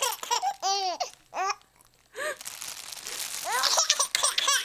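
Baby laughing and squealing in short high peals, set off by a sheet of plastic being crinkled; the crinkling comes in about three seconds in, with the loudest laughter near the end.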